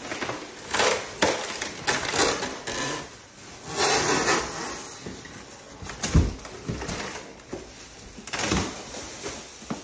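Plastic wrapping crinkling and rustling in bursts against cardboard and foam packing as a heavy plastic-wrapped exercise-bike frame is lifted and tipped up out of its box, with a solid thud about six seconds in.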